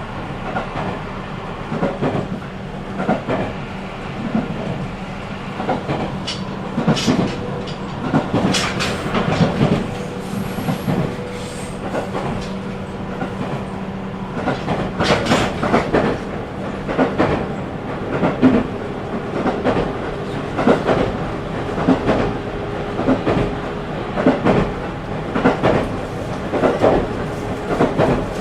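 JR 313 series electric train running, its wheels clacking over rail joints in a steady rhythm, heard from inside the carriage. A steady electric hum from the drive runs under the clacks and drops away about two-thirds of the way through.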